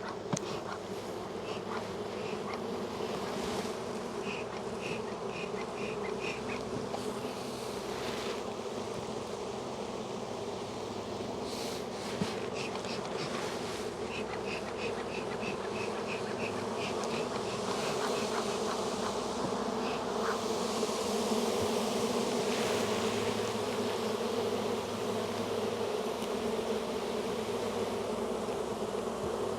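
Dense mass of honey bees buzzing steadily in an open, heavily populated hive, the sign of a very strong colony. Twice a quick run of short high chirps sounds over it, and there are two light clicks.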